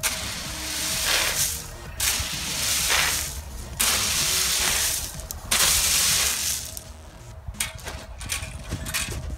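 A rake dragged through a bed of drain-field gravel in several strokes of about a second each, the stones scraping and rattling; in the last couple of seconds only scattered clicks of stones.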